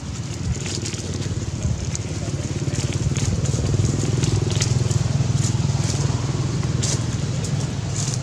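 Dry leaves and grass crackling as a macaque picks through the litter with its hand, in scattered sharp crackles over a steady low rumble that swells in the middle and eases near the end.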